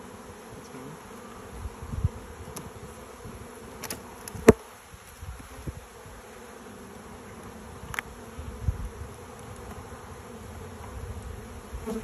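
Honeybees buzzing steadily around an open hive, with a sharp click about four and a half seconds in and a fainter one near eight seconds.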